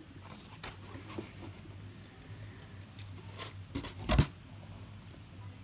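Foam clamshell takeout container being handled and shifted, with scattered clicks and rustles and a sharp knock or creak about four seconds in, the loudest sound. A steady low hum runs underneath.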